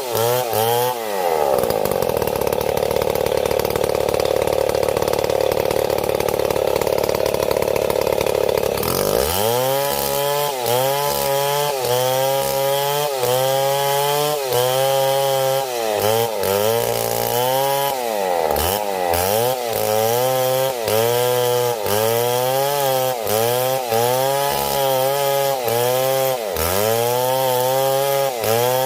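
Stihl MS 070 two-stroke chainsaw running at a steady high pitch for several seconds, then from about a third of the way in its engine pitch rises and falls over and over, about one and a half times a second.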